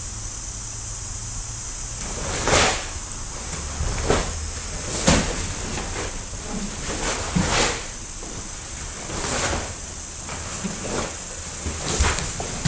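Sharp swishes and snaps of a karate gi with each technique of a kata, together with bare feet thudding and sliding on a wooden floor, about seven distinct strikes at irregular intervals of one to two seconds, over a steady hiss.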